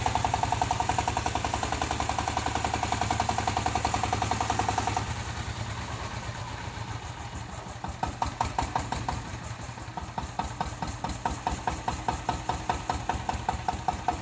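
Mini crawler tractor's engine running fast with rapid, even firing, then dropping back about five seconds in to a slower, quieter idle. From about eight seconds on, a sharp, regular tapping runs through the idle.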